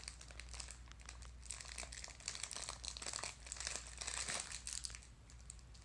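Christmas wrapping paper crinkling and rustling as a dog noses and pulls at a wrapped gift, thickest in the middle and easing off near the end.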